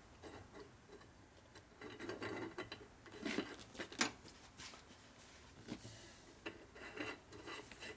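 Faint handling noises on a metal workbench: a shop rag rubbing and light metal clicks as an engine seal and its retainer are handled in an aluminium casting, with the sharpest click about four seconds in.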